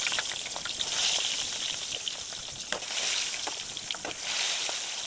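Pieces of rohu fish frying in hot oil in a steel karai: a steady hissing sizzle with frequent crackles and pops.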